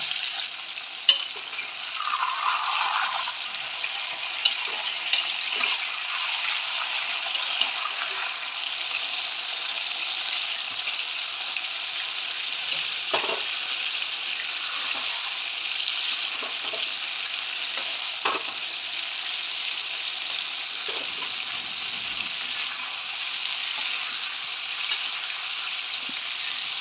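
Chicken pieces sizzling steadily as they fry in hot oil in a kadai, with a metal spatula now and then knocking and scraping against the pan as the pieces are turned.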